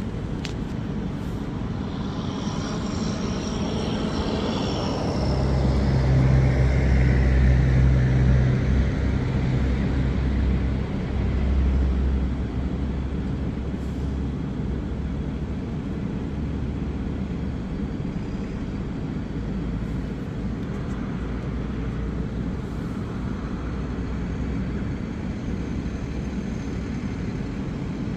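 A motor vehicle passing on the street: a falling whine in the first few seconds, then a low engine drone that is loudest from about five to twelve seconds in, over a steady low rumble.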